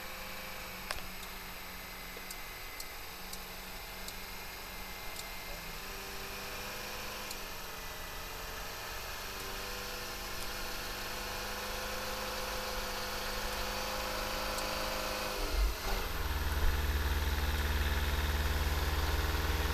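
Engine of a 1980s Toyota 4x4 pickup running at low speed as the truck climbs a snowy road, getting steadily louder as it approaches. Its pitch shifts gently, and about sixteen seconds in there are a couple of low bumps, then a much stronger low rumble as the truck comes close.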